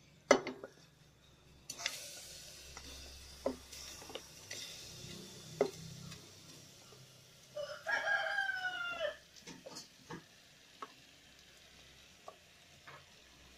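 A metal spoon scraping thick pork curry out of a pan into an aluminium pressure cooker: scattered clicks and scrapes of metal on metal. About eight seconds in, a drawn-out call of about a second and a half, falling slightly in pitch, is the loudest sound.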